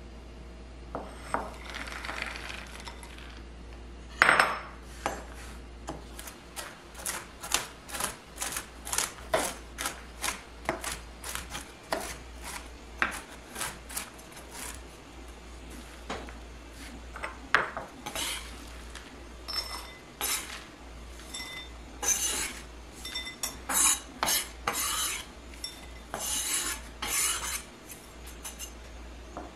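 Chef's knife chopping pecans on a bamboo cutting board: a run of sharp knocks of the blade on the board, two or three a second, with a louder knock about four seconds in. Near the end the sounds turn to rougher scraping and clatter as the chopped nuts are gathered off the board.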